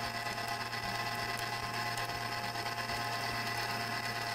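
Electric stand mixer running steadily at high speed with a steady whine, its beater mixing cake batter of creamed butter and sugar, eggs and milk.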